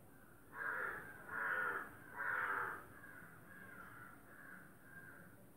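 A crow cawing: three loud caws in the first three seconds, then a run of fainter, shorter caws.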